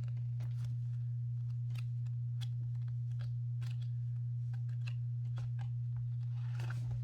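A steady low hum, with faint scattered clicks and light rustles of books being handled.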